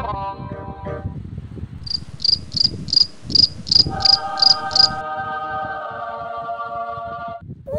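A run of about nine evenly spaced, high cricket-like chirps lasting about three seconds, overlapped and then followed by a steady held chord of several tones that stops shortly before the end.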